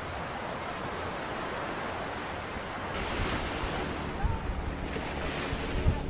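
Waves washing up on a sandy beach, the surf swelling about halfway through and again near the end, with wind buffeting the microphone in low thumps.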